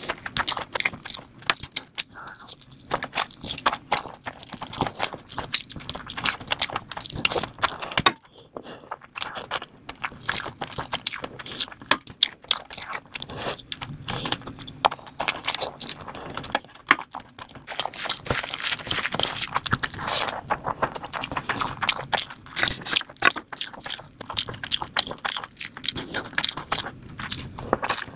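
Close-miked mouth sounds of eating spicy mutton on the bone and biryani rice by hand: wet chewing, with dense rapid clicks and smacks. A quieter stretch comes about a third of the way in.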